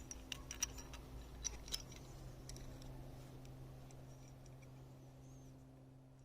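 Faint small metallic clicks and ticks, thickest in the first two seconds and thinning out after, as the bike bell's clamp hex bolt is backed out and the clamp hardware handled, over a low steady hum.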